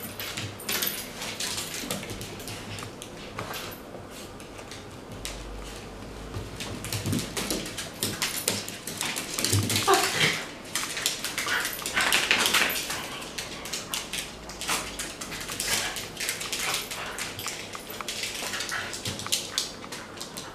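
Shiba Inus wrestling in play, with short dog vocalisations and the repeated clicking of claws on a hard floor. The vocalising is loudest around the middle.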